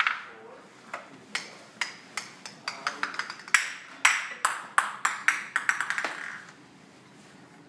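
Small plastic balls clattering down the spiral ramps of a toddler's plastic ball-drop tower toy: runs of quick, ringing clicks and taps that stop about six and a half seconds in.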